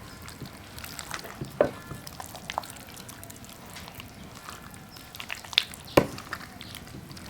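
Food sizzling as it cooks, with a few sharp clicks and knocks, the loudest about six seconds in.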